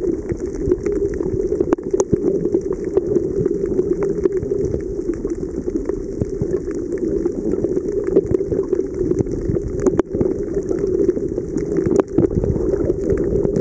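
Underwater sound picked up by a camera in its waterproof housing: a steady muffled rushing, with scattered sharp clicks throughout.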